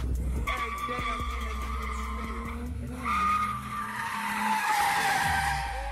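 A car drifting, its tyres squealing in long sustained squeals over the running engine. The squeal breaks off briefly about halfway, then comes back loudest near the end.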